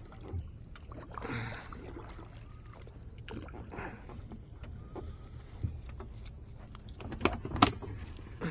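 Kayak paddle strokes splashing in shallow water among floating plants and debris, with two sharp knocks a little after seven seconds in, the loudest sounds here.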